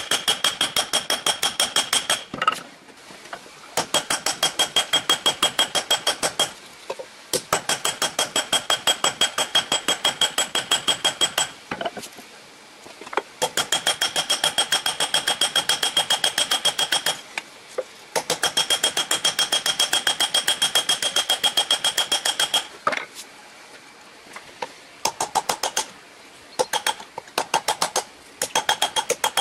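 Hand hammer forging a red-hot steel axe head on an anvil: fast runs of blows, each with a bright metallic ring from the anvil. The runs stop for short pauses every few seconds, and near the end the blows come in shorter, scattered groups.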